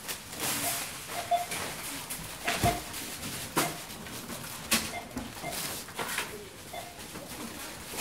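Supermarket checkout barcode scanner giving short beeps at uneven intervals as items are scanned, with several sharp knocks and rustles between the beeps.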